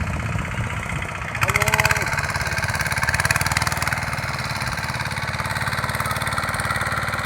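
A small engine running steadily with an even, rapid beat, getting louder about a second and a half in. A brief voice-like call sounds over it around the same time.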